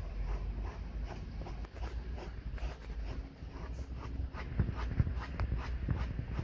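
Close scuffing and rubbing from a dog holding a rubber-soled shoe in its mouth up against the phone, over a low rumble, with scattered clicks and taps that grow busier in the second half.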